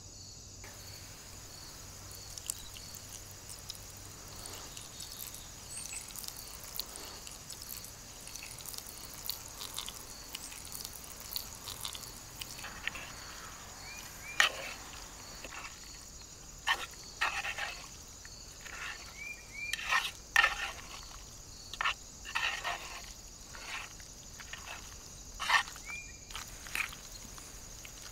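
Metal fork mixing an oiled, chopped vegetable salad in a wooden bowl: wet, sticky stirring with sharp clicks and scrapes of the fork against the bowl, sparse at first and coming thick and loud in the second half. Behind it, a steady chirring of crickets.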